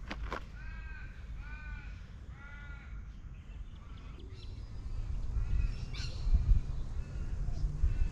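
An Australian raven calling: three drawn-out caws about a second apart, then fainter calls later. A low rumble builds through the second half.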